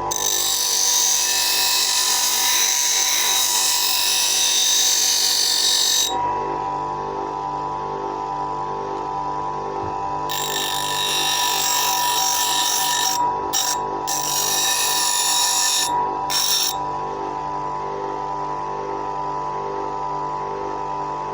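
Bench grinder running with a steady motor whine while a scissor blade is ground against the wheel. Two long grinding passes: one for about the first six seconds, and another from about ten seconds in, broken by short lifts, ending around seventeen seconds. Between passes the grinder spins free.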